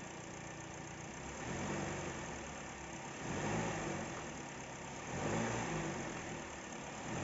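2022 Hyundai Kona petrol engine running at low speed, with the revs swelling up and falling back about every two seconds. The owner hears a clicking noise on acceleration and deceleration in drive, which does not happen in neutral.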